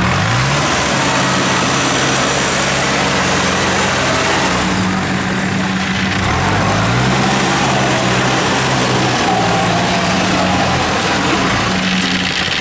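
Engine of a tracked rice-hauling carrier running steadily as the loaded machine crawls through paddy mud, its note rising briefly near the start and again about six seconds in.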